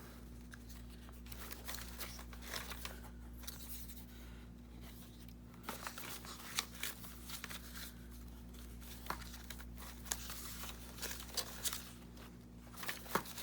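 Paper ephemera being rummaged through and handled: irregular rustles and crinkles of paper pieces, over a steady low hum.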